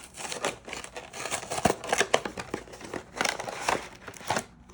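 Plastic wrapping on a trading-card box being cut and torn open, crinkling, with a run of irregular sharp clicks and rustles.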